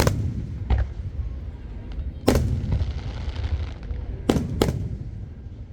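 Aerial fireworks shells bursting: five sharp booms over a low rolling rumble. The first comes right at the start, a weaker one follows under a second in, and a loud one a little past two seconds is followed by about a second of crackling. Two more booms come close together a little past four seconds.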